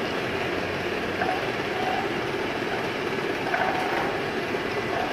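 Two-side servo neck labelling machine running, its conveyor and label applicator giving a steady mechanical noise with faint repeating ticks.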